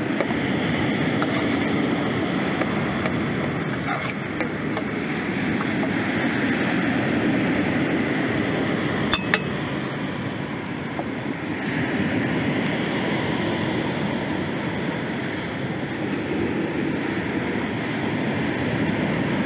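A metal spoon clinking a few times against a speckled enamel pot while stirring vegetables, over a steady rushing noise. There is one sharp click about nine seconds in. Near the end, air is blown through a pinched plastic pipe into a campfire to fan it.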